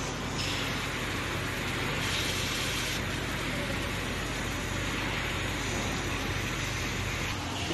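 Automatic faucet leak-test machine running: water pouring from the spout of the faucet under test makes a steady hiss over a steady low machine hum.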